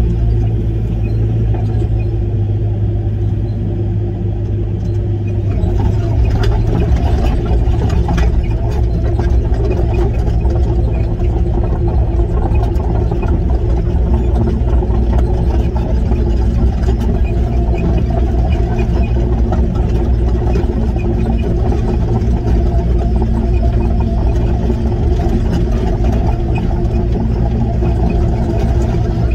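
Link-Belt 145 excavator's diesel engine running steadily with the machine working, getting a little louder and fuller about six seconds in.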